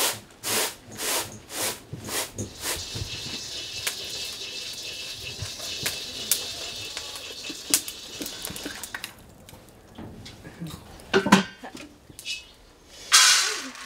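Grain being tossed in a large round bamboo winnowing tray, a rhythmic swish about twice a second, followed by grain roasting in an iron wok over a fire, a steady hiss with the ladle scraping the pan. Near the end a young woman's short laugh.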